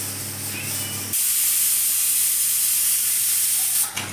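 Steam hissing hard and steadily from a cooking pot for about three seconds, starting and stopping abruptly.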